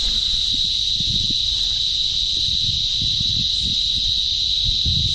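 Insects buzzing in one continuous, steady, high-pitched drone, with irregular low rumbles underneath.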